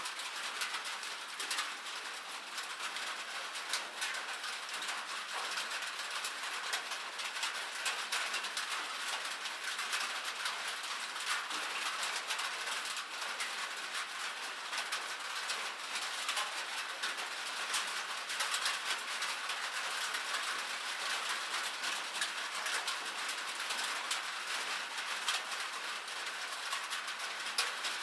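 Light rain falling steadily, a dense even patter of small drops with fine crackling ticks.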